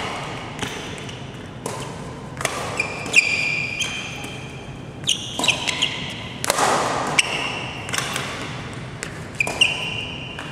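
Badminton racket strikes on shuttlecocks and footwork on a court, with sharp hits, landing thuds from jumps and short high squeaks of sneakers on the court floor.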